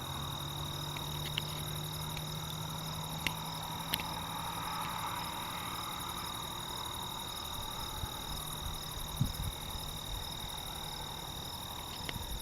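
Nature-sound ambience: a steady chorus of animal calls with a fast, even trilling, one constant high-pitched tone and a low hum underneath, broken by a few faint clicks.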